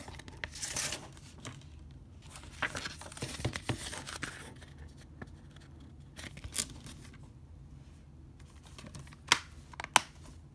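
A Blu-ray case's paper cover insert rustling and sliding as it is handled, with two sharp plastic clicks from the case a little under a second apart near the end, the loudest sounds.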